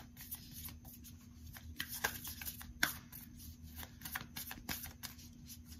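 A deck of cards being shuffled by hand: irregular soft flicks and snaps of the cards, the sharpest about two and three seconds in, over a faint steady hum.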